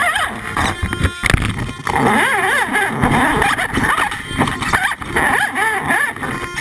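Axial AX10 radio-controlled rock crawler's electric motor and gearbox whining, the pitch wavering up and down as the throttle is worked, with knocks of the tyres and chassis against rock, heard from a camera on the frame.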